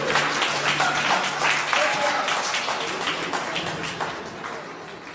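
Audience applause with voices talking, fading away toward the end. A low held tone lingers underneath during the first two seconds.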